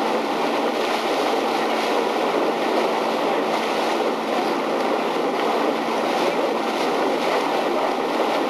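Steady rushing noise of wind over the microphone and water, with no single event standing out.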